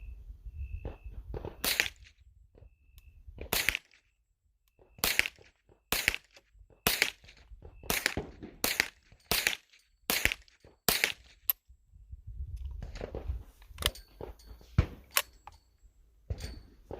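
Canik TP9SFX 9mm pistol being fired: a string of single shots, mostly about a second apart, with a few more shots near the end.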